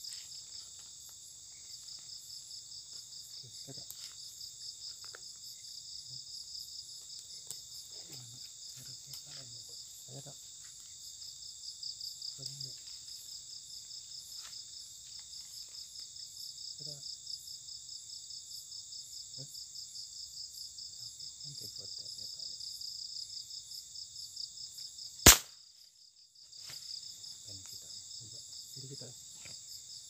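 A night chorus of crickets keeps up a steady pulsing trill. About 25 seconds in, a single sharp shot from a hunting gun cracks out, and the insects go quiet for about a second before starting again.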